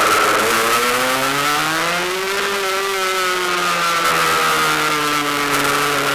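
Rieju RS2 Matrix two-stroke motorcycle engine heard from the rider's seat, its pitch rising over the first two or three seconds as the bike accelerates, then falling slowly as the throttle eases off.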